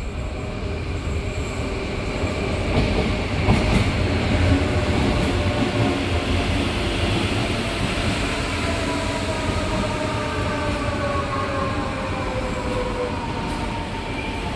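Rodalies electric commuter train pulling into an underground station. The rumble of its wheels on the rails is loudest about three to five seconds in as it reaches the platform, then a falling whine follows as the train slows.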